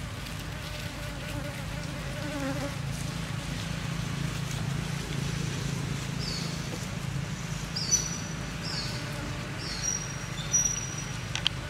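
Bees buzzing in a steady low drone around a torn-open bees' nest. Several short high chirps sound in the second half.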